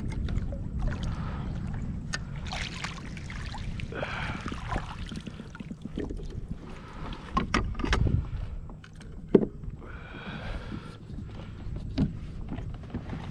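Low rumbling wind and water noise on a kayak, with scattered sharp knocks and clicks and a couple of brief rustling swishes.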